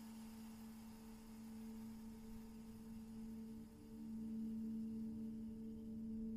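Faint ambient drone: a steady low held tone with a couple of quieter tones above it, growing a little louder about four seconds in.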